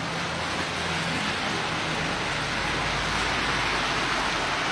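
Steady rushing noise, even throughout, with a faint low hum in the first half.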